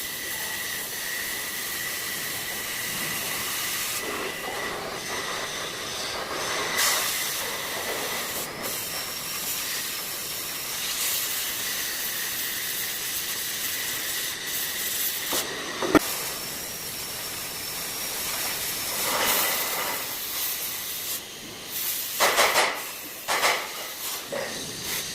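Cutting torch hissing steadily while cutting a steel beam, with a few louder surges and one short sharp sound about 16 seconds in.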